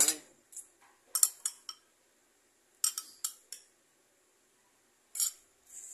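Metal spoon and fork clinking against a ceramic soup bowl and plate while eating: a clink at the start, two quick runs of clinks about one and three seconds in, and one more near the end.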